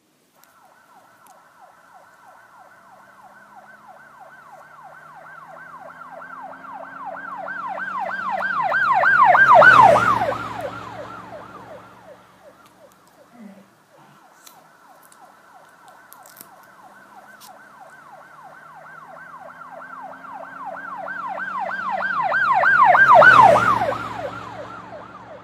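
Emergency vehicle siren in a fast warbling yelp, growing louder as it approaches, passing closest about ten seconds in with a drop in pitch, then fading. The same pass comes a second time, closest near the end.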